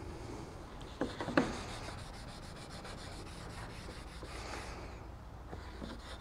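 Paste wax being rubbed by hand into a cherry board with a small pad: soft, faint back-and-forth scrubbing on the wood. About a second in come three or four short sharp knocks, the loudest sounds.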